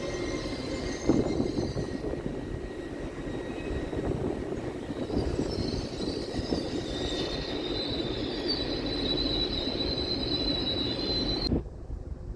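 LNER Azuma electric high-speed train rolling along the platform: a steady rumble of wheels on the rails with a single knock about a second in, and a high whine that rises and grows louder in the second half. The sound cuts off suddenly near the end.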